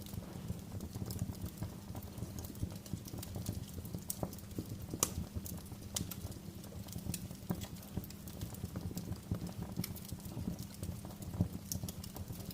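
Wood fire burning, with irregular crackles and sharp pops over a low steady rumble; the sharpest pops come about five seconds in and near the end.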